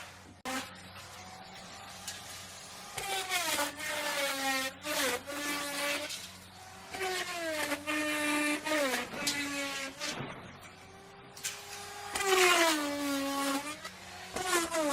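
Electric wood router cutting wood in short passes, about four in all. Each time the bit bites in, the motor's whine drops in pitch and holds lower under the load, over a steady low hum.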